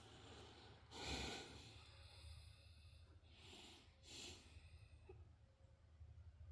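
Near silence with a person's faint breathing: three soft breaths, about a second in and then two close together past the three-second mark.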